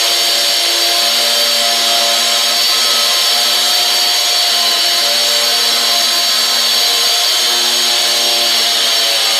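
Makita wall chaser running steadily at high speed, a constant high-pitched whine that does not change in pitch or level.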